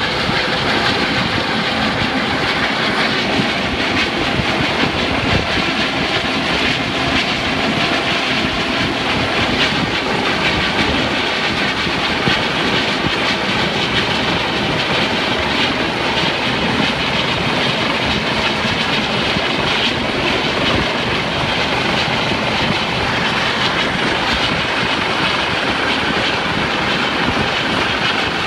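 U.S. Coast Guard helicopter's rotors beating in a fast, steady chop over a rushing whoosh, holding even throughout.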